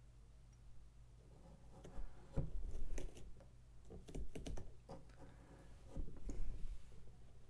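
A knife cutting and scraping into a pumpkin's rind and flesh during carving, in three short bursts of crisp clicks and scrapes, about two, four and six seconds in.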